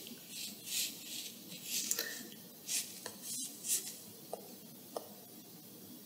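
Stylus sliding and tapping on a tablet's glass screen: several soft, scratchy swishes in the first four seconds, then a few light taps.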